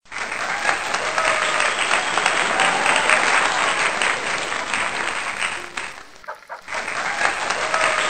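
Water from a small homemade tabletop fountain, fed by a 3-volt submersible pump, splashing and trickling steadily, with a brief dip about six seconds in.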